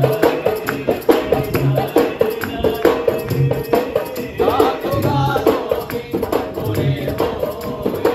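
A group of men singing a lively folk song together over fast rhythmic hand-clapping, with a low drum beat thumping every second or two.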